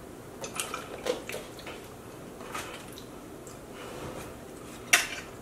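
Quiet sounds of people eating and drinking at a table: small wet mouth and swallowing noises and scattered light clicks of food and tableware, with one sharp tap near the end.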